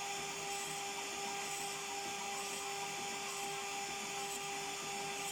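CNC router spindle running with a steady whine over a hiss, milling beech wood, with a faint swell in the cutting noise about once a second.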